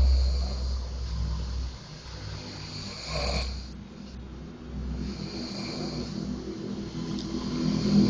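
A person snoring in deep, slow breaths. There is a long snore at the start, a short one about three seconds in, and another that begins about five seconds in and grows louder near the end.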